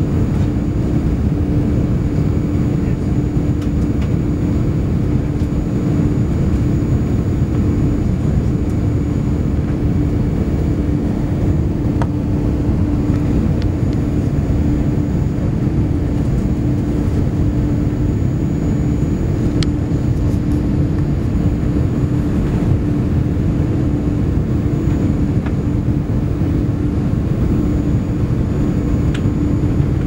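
Steady engine and airflow noise inside the cabin of an Airbus A380 with Rolls-Royce Trent 900 engines, climbing after takeoff. A steady hum runs through the low rushing noise.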